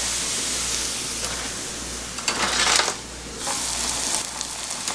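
Hot oil sizzling as rice crust (nurungji) fries in a shallow pan, with a louder surge of sizzling about two and a half seconds in as a fresh piece goes into the oil. The sizzling dips briefly after the surge, then carries on.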